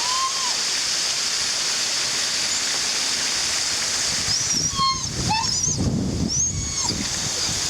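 A waterfall on a brook rushing steadily. From about halfway through, a few short, high, sliding cries from an animal, one of the dogs on the outing, sound over it.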